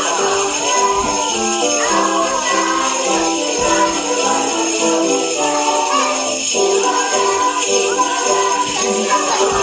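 Sleigh bells shaken in a steady, continuous jingle over recorded music with a stepping melody.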